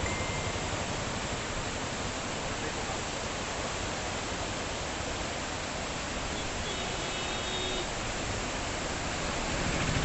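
Steady, even rush of floodwater, a constant hiss with no breaks.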